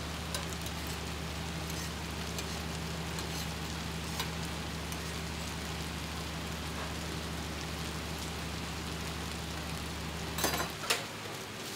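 Stuffed flatbreads crackling and sizzling as they dry-fry on a hot drum griddle, over a steady low hum. The hum cuts off near the end, where a few sharp clicks sound.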